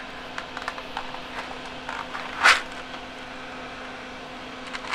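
Small handling noises at a workbench: scattered light clicks and taps, a brief rustle about halfway through and another near the end, over a steady low hum.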